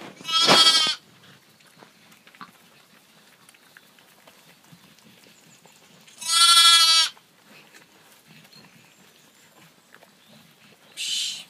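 Texel sheep bleating three times: a call about half a second in, a longer one around six seconds in, and a shorter, fainter one near the end.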